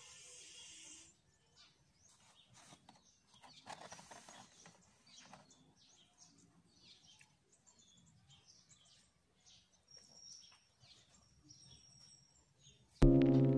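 Faint close-up eating sounds: a soft hiss at first, then scattered small clicks and crackles of a breakfast sandwich being handled, bitten and chewed. Loud music with piano notes starts suddenly near the end.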